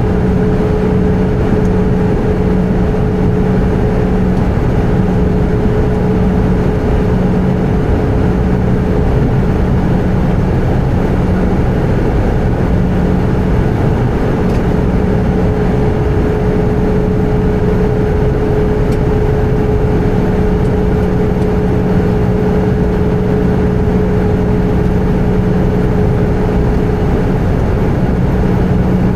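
Airbus A320 in flight heard from inside the cabin: a steady roar of engines and airflow with a constant low hum and a higher steady drone, unchanging throughout.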